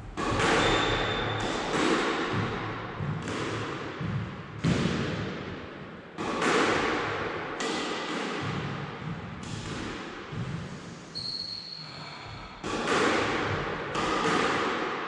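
Squash ball being hit back and forth in a backhand drill: sharp, echoing smacks of racket and front wall about every one to one and a half seconds, with a few short shoe squeaks on the court floor.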